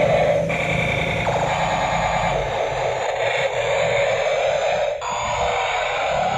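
Battery-powered toy fire-rescue helicopter playing its electronic sound effects: a harsh, noisy loop that switches abruptly to a different pattern a few times.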